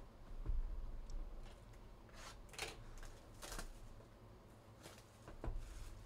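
A cardboard trading-card hobby box being handled: a soft knock, then several short crinkling rustles as its plastic wrap is torn off, and a thump near the end as the box is set down.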